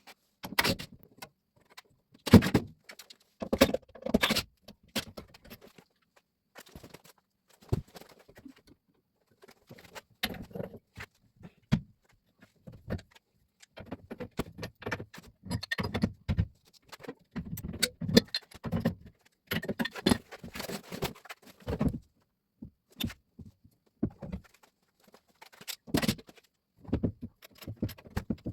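Irregular metallic clinks, rattles and knocks of gas pipe, fittings and hand tools being handled while the pipe is worked into place.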